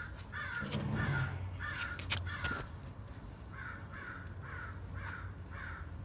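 A bird calling in two runs of short, evenly repeated calls, about two a second, with a pause of about a second in the middle. A low steady hum runs underneath.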